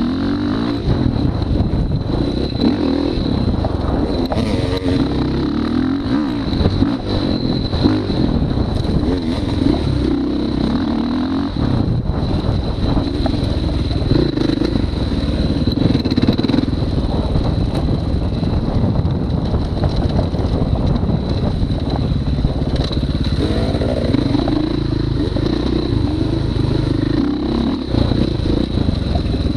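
Dirt bike engine running hard on a short track, its pitch rising and falling over and over as the throttle is opened and closed, heard from the rider's chest-mounted camera.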